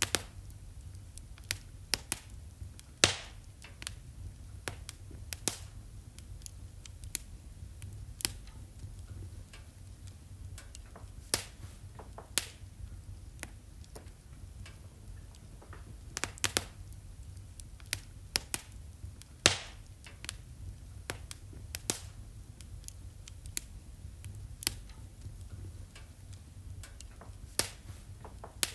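Fire in a fireplace crackling: irregular sharp pops and snaps over a low steady rumble, with louder pops about three seconds in and again near the middle.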